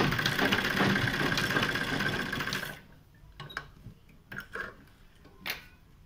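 Black domestic straight-stitch sewing machine running fast as it stitches a straight seam, a dense rapid ticking that stops abruptly under three seconds in. A few light clicks follow as the fabric is handled.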